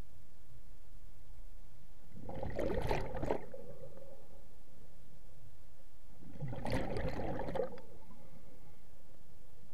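Scuba diver exhaling through a regulator underwater: two bursts of bubbles, each about a second long and about four seconds apart, over a faint steady hum.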